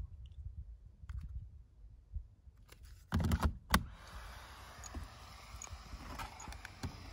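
Plastic handling clicks and knocks as a DJI Mavic 2 flight battery is pushed and snapped into the drone's body, loudest about three seconds in. From about four seconds in, once the battery's power button is pressed, a steady faint hiss with a few small ticks follows.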